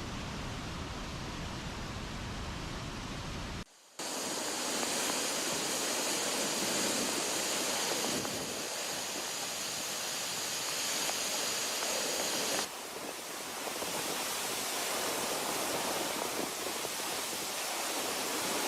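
Heavy floodwater rushing in a steady, loud roar. The sound changes abruptly twice, about four seconds in and again about thirteen seconds in, where one clip cuts to the next.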